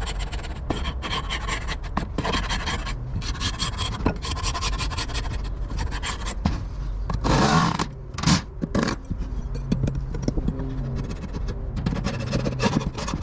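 Hive scraper scraping propolis off the timber of a beehive floor in repeated rough strokes, with one louder scrape about two-thirds of the way through.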